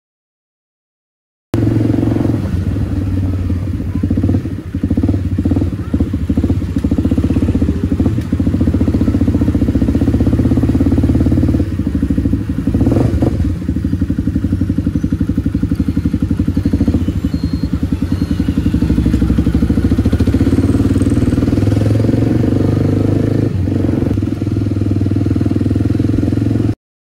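Kawasaki D-Tracker 250's single-cylinder four-stroke engine running at low road speed, with small changes of throttle. The sound cuts in about a second and a half in and cuts off suddenly just before the end.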